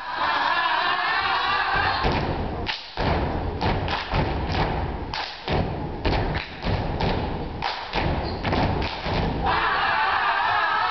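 Heavy, irregular thumps of dancers' feet stomping on the stage floor, with a loud wash of cheering voices at the start and again near the end.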